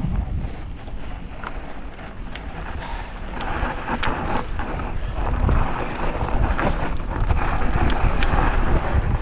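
Mountain bike descending a dirt trail: wind buffeting the microphone and knobby tyres running over dirt and loose stones, with scattered sharp clicks and rattles from the bike. The tyre hiss grows louder about three seconds in.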